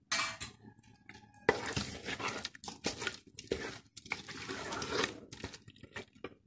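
Wooden spoon stirring fried chicken pieces into a thick, wet masala and coconut-milk mixture in a metal pot, squelching and scraping. A short burst comes at the start, and steady stirring runs from about a second and a half in until just before the end.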